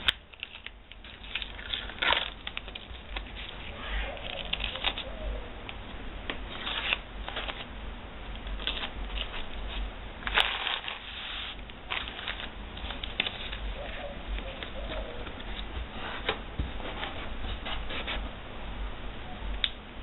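Blue painter's tape being folded over and pressed down along the edges of a plexiglass sheet and paper template, with hands rubbing and crinkling tape and paper in irregular scratchy bursts.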